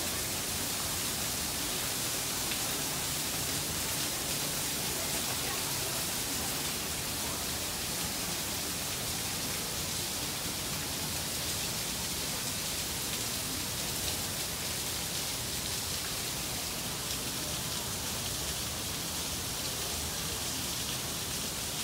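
Steady, even hiss of falling water.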